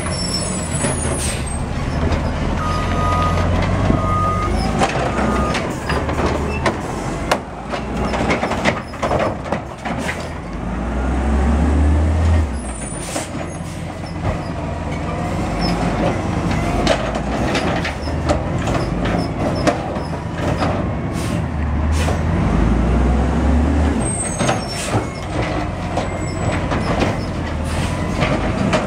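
Automated side-loader garbage truck working a row of carts: its diesel engine runs steadily and revs up about three times as the hydraulic arm cycles. Between the revs come sharp clanks and air-brake hisses.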